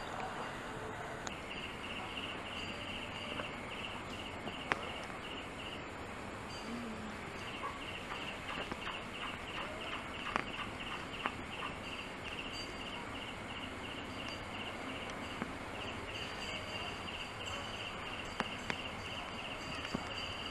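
Outdoor ambience with a high chirping repeated about four times a second, which breaks off twice and resumes, over a steady hiss, with a few sharp clicks.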